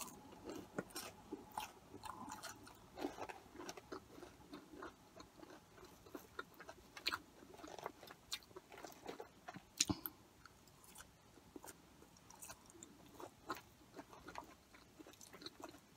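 Faint close-up chewing of cheese-covered curly fries, with scattered soft mouth clicks and one sharper click a little past the middle.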